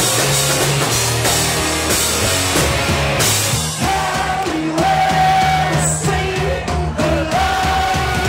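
Three-piece rock band playing live through a PA: electric guitar, bass guitar and drum kit, with lead vocals singing held notes from about halfway through.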